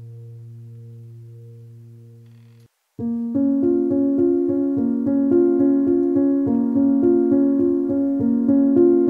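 Background music: a sustained tone fades away, then after a brief gap about three seconds in a keyboard tune with steady repeated notes begins.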